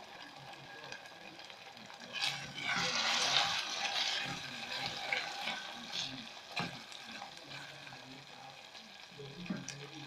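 A pot of beans in sauce sizzling on the heat as it is stirred, with a louder burst of sizzling and scraping from about two to four and a half seconds in. A sharp knock about six and a half seconds in, and a smaller one near the end.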